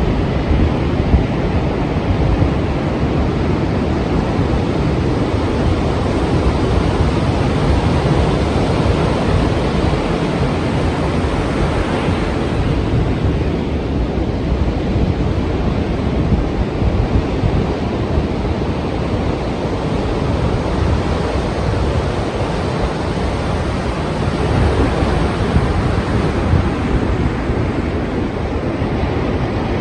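Strong sea surf: a steady heavy rush of breaking waves, with wind, swelling slightly about twelve seconds in and again near the end.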